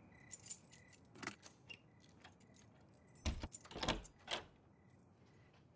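A bunch of keys jangling in a few short bursts, the loudest run about three to four and a half seconds in.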